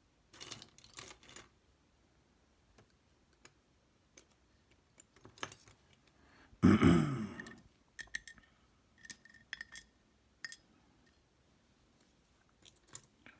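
Small metallic clicks and rattles of a dimple lock's pins and parts being handled and pulled out of its core with tweezers and tools, with one louder, lower clatter about halfway through.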